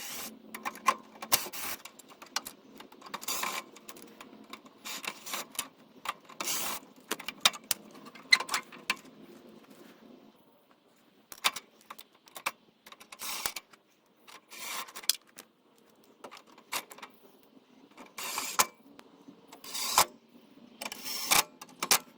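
Scattered clicks, knocks and scraping from hand tools and small metal and plastic parts being handled while a sealed-beam headlamp is fitted and its retaining hardware set in place.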